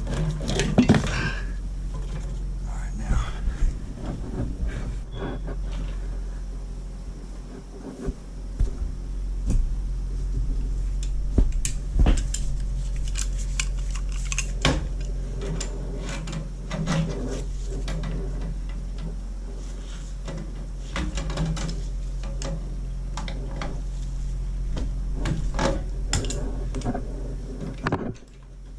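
Scattered metallic clinks and knocks of hand tools working on metal parts, over a steady low hum.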